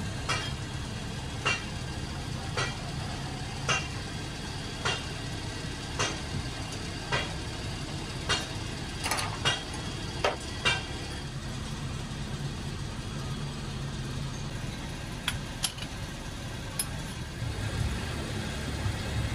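Regular sharp knocks of metal being struck, about one a second, each with a brief ring, over a steady low machine hum. The knocks thin out past the middle, leaving only a few scattered strikes.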